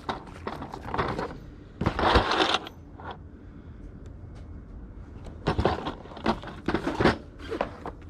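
Small hard objects clattering and rustling as they are handled, in several short irregular bursts; the loudest comes about two seconds in and a cluster follows near the end.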